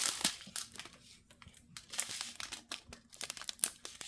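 Small plastic bags of diamond painting drills being handled and sorted, crinkling in bursts of short crackles.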